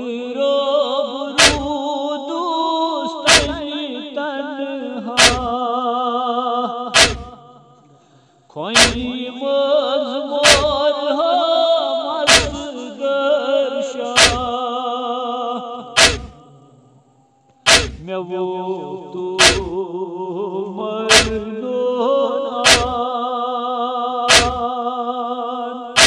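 A noha (Shia lament) sung by male voices in long, held phrases, with a sharp chest-beating (matam) thump about every two seconds keeping the beat.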